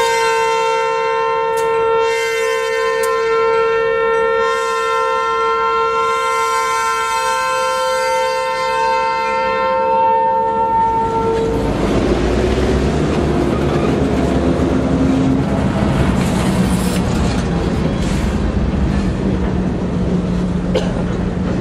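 Diesel locomotive horn held in one long steady chord for about eleven seconds, then cut off, leaving the rumble and rattle of a slow-moving Norfolk Southern yard locomotive and boxcar rolling past.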